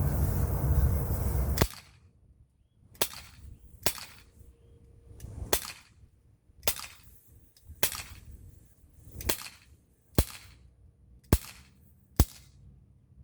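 Glock 19 replica BB pistol, CO2-powered, fired nine times in a steady series about a second apart, each shot a sharp snap. Before the shots, a steady noise cuts off suddenly about two seconds in.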